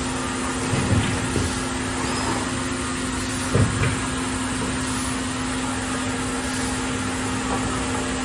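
Vacuum hold-down pump of a CNC router running steadily with a hum, holding about 23.6 inches of mercury on the spoil board. Two short thumps come through, one about a second in and one a little before the middle.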